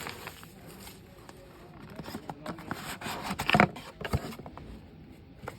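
Rustling and light clicks of unboxing packaging being handled: paper and plastic wrappings shifted and pulled out of the box, with a louder flurry of crinkles and taps about three and a half seconds in.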